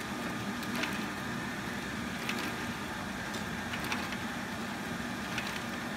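Egg candler and its chain-driven egg conveyor running: a steady motor hum with a faint higher whine, and a few faint clicks about a second and a half apart.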